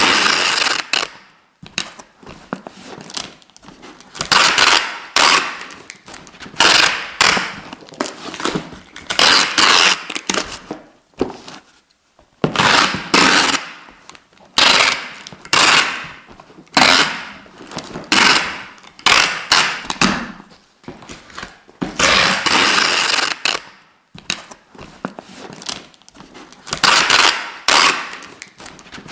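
Adhesive tape being pulled off the roll in repeated strips, about one pull every second or two, each a crackling tear of about a second, with one longer pull about three-quarters of the way through.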